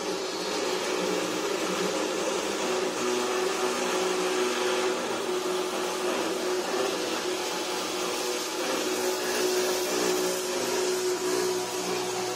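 Automatic 355 circular-saw cutting machine for steel pipe and box tube running, its motor and saw giving a steady whine over a hum. The hiss grows a little harsher about nine seconds in.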